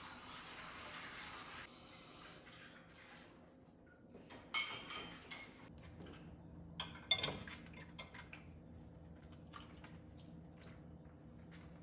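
Washed dishes and a pan being set into a wire dish rack, clinking against each other and the rack in scattered clatters, the loudest about seven seconds in. A steady hiss runs for the first couple of seconds.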